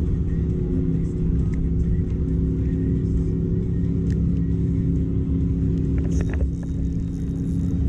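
Steady low engine drone of motorboat traffic on the lake, with a few sharp clicks about six seconds in.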